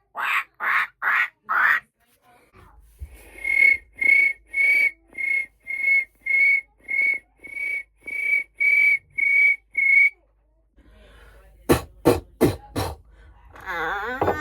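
A person imitating birds with the voice: a few short harsh squawks, then a run of about fourteen short whistled chirps at one steady high pitch, roughly two a second. Four sharp clicks follow near the end.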